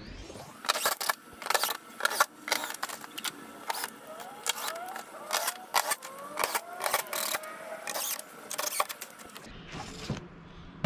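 Irregular sharp clicks and taps of a hand screwdriver and screws as the top engine cowling is screwed down, with faint short rising squeaks in the middle.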